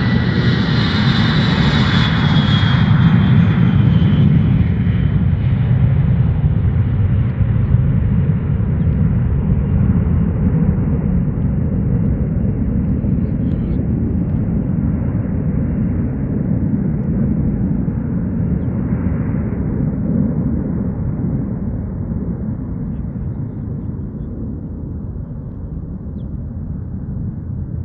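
Boeing 707's four Pratt & Whitney JT3D turbofans at takeoff power: a loud jet roar with a whine that falls in pitch in the first few seconds as the plane goes past. A deep rumble follows and slowly fades as the jet climbs away.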